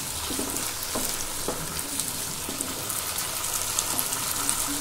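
Whole moong, potato and brinjal pieces sizzling steadily in oil in a nonstick kadai, with a wooden spatula stirring and scraping through them in the first few seconds.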